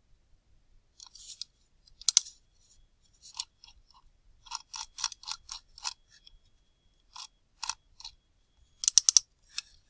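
Irregular clicks of a computer keyboard and mouse: scattered single clicks, a quick run of about a dozen in the middle, and a loud tight cluster near the end.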